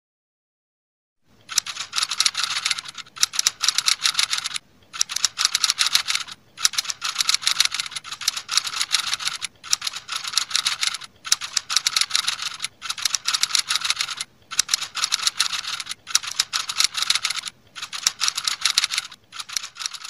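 Typing sound effect: rapid keyboard-style clicks in runs, each run a second or two long with brief pauses between, starting about a second and a half in.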